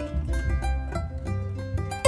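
Background music: a plucked-string instrument picking a melody of quick notes over a low bass.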